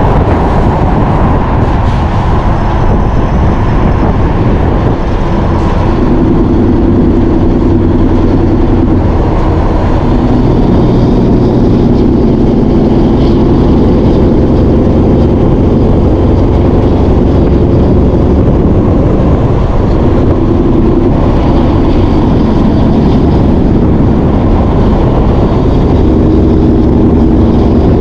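Heavy diesel engine running steadily, its pitch shifting a few times as the revs change.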